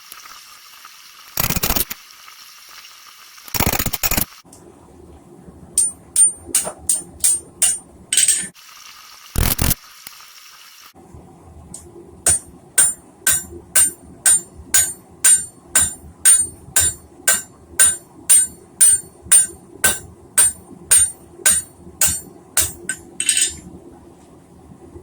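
Blacksmith's hammer striking hot steel on an anvil, forging a chisel: a steady run of blows about two a second, many with a high ring, broken by a few short pauses and several longer scraping bursts in the first ten seconds. A steady low hum runs beneath the strikes.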